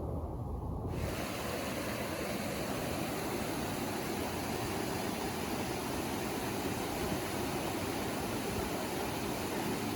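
Steady rushing noise with no clear pitch or rhythm. About a second in it changes from a muffled rumble to a brighter, even hiss.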